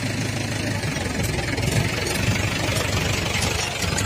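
Steady low drone of an engine running at idle, with a few faint light clicks over it.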